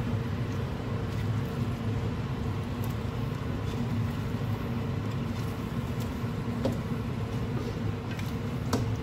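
A steady low hum runs throughout, with a couple of faint clicks in the second half.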